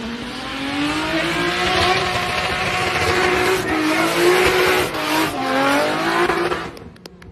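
Holden VZ Commodore SS's LS V8 held at high revs in a burnout, the pitch rising and falling, with the rear tyres squealing under it. The sound drops away sharply near the end.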